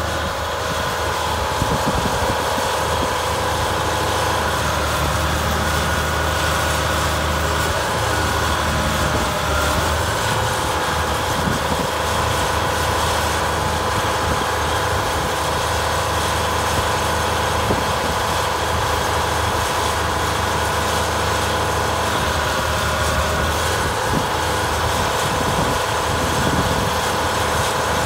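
Komatsu PC1250 LC excavator's diesel engine running steadily while the hydraulic boom and arm are lowered and curled.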